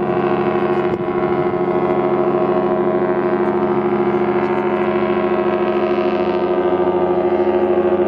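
Ship's horn of the cruise ship MS Harmony of the Seas sounding one long, steady blast.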